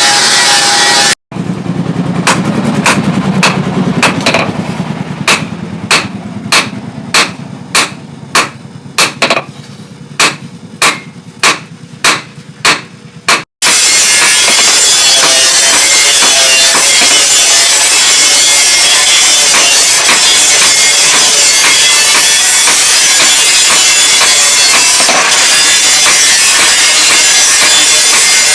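A hand hammer striking steel, evenly spaced blows about one and a half a second, each ringing briefly. After a sudden cut, a steady harsh grinding noise takes over and runs on.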